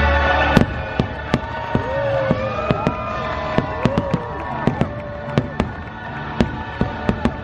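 A fireworks display: aerial shells bursting in quick, irregular succession, with many sharp bangs and crackles, the loudest about half a second in as choral show music drops away. Rising-and-falling tones sound between the bangs.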